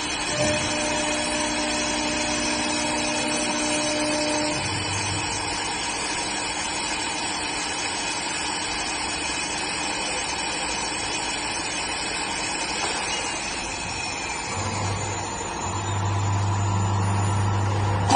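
CNC wood lathe running, with steady machine and cutting noise; a steady motor tone sounds for the first four seconds or so, and a low hum comes in near the end.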